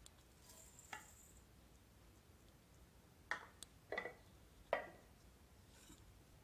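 Dry rolled oats poured into an empty stainless steel mixer-grinder jar with a brief rustling hiss, followed by three sharp clinks and knocks about a second apart as the bowl and the jar's lid are handled.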